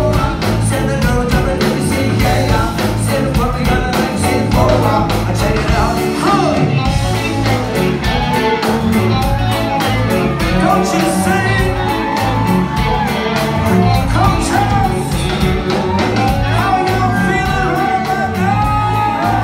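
Live band playing a song with a lead singer: drums keeping a steady beat under bass, guitars and keyboard, loud and reverberant as heard from the audience in a large hall.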